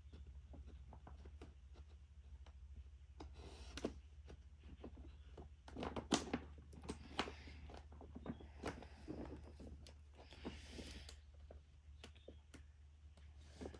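Sheets of sandpaper being slipped into the plastic pockets of an accordion file folder: soft paper-and-plastic rustling with scattered light clicks and taps, loudest about six seconds in.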